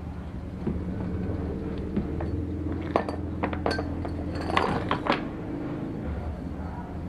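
Metal parts and tools clinking and knocking against each other during hand work on an outboard engine. The sharp clinks are scattered and bunch together between about three and five seconds in, over a steady low hum.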